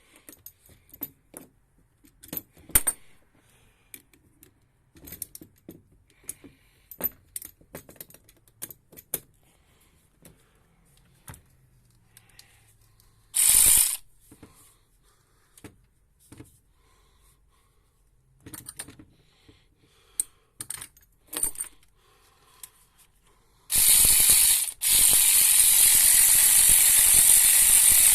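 Socket ratchet wrench turning the crank position sensor bolts: scattered clicks and taps of the tool, a half-second burst of rapid ratcheting about thirteen seconds in, then a long run of fast ratcheting over the last four seconds with a brief break.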